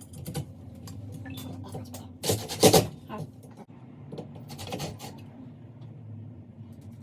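Metal parts and tools being handled during a ceiling fan install: scattered clinks and rattles, with a loud clatter about two and a half seconds in and a smaller one near five seconds, over a steady low hum.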